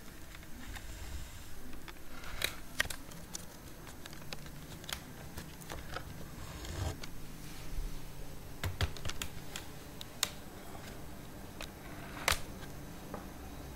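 Irregular clicks and taps of hands handling a laptop and its webcam, the loudest tap about twelve seconds in.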